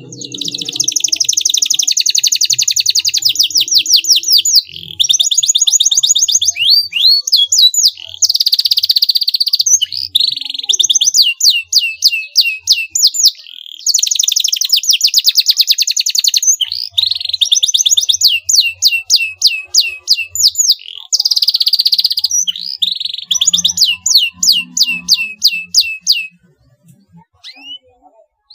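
Canary singing a long song of fast trills, rows of rapid repeated high notes with short gaps between phrases, stopping about two seconds before the end.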